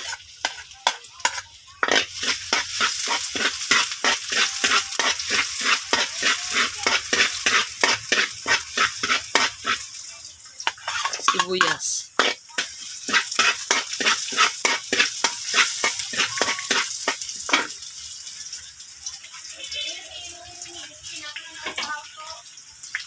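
Garlic and onions sizzling in hot oil in a wok, with a metal spatula scraping and tapping the wok in quick strokes, about two or three a second. The strokes stop a few seconds before the end while the sizzle goes on.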